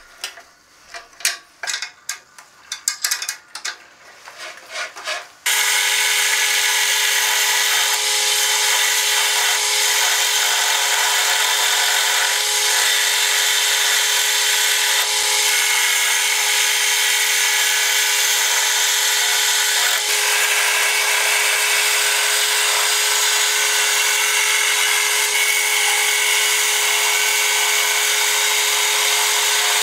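A few clicks and knocks as the cast-iron tailstock of a wood lathe is wound in and locked against a wooden blank. Then, about five seconds in, the lathe running steadily with a humming whine while a hand-held turning chisel cuts shavings from the spinning wood.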